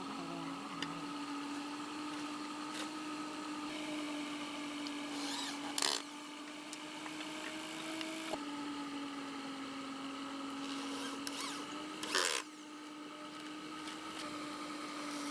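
A power tool running with a steady hum, with two brief louder bursts about six seconds apart.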